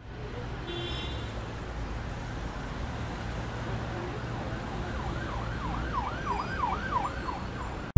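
A siren sweeping quickly up and down in pitch, about three times a second, for a couple of seconds from about five seconds in, over a steady low rumble.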